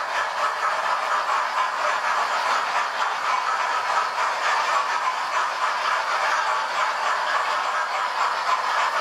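Model steam locomotive running on the layout track, hauling a train of coaches. It makes a steady, even running noise.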